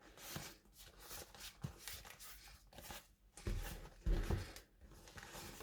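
Faint handling noises of a leather boxing glove being moved and turned over, soft rustling with two dull low thumps about three and a half and four seconds in.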